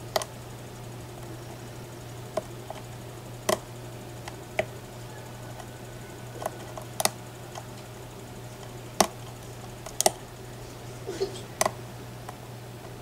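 Lock pick and tension wrench working the pin stack of a Mako M2 SFIC lock core: about fifteen sharp, irregularly spaced metallic clicks and ticks, heard over a steady low hum.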